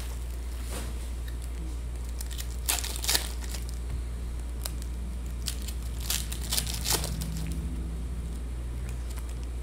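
Foil trading-card pack wrappers crinkling and cards being handled. Short sharp crackles come about three seconds in and again around six to seven seconds in, over a steady low hum.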